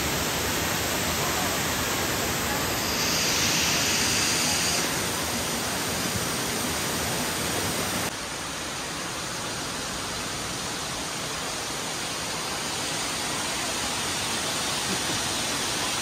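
Steady rush of flowing river water, an even hiss with no rhythm. It brightens briefly about three to five seconds in, then drops abruptly to a slightly lower level about eight seconds in and carries on.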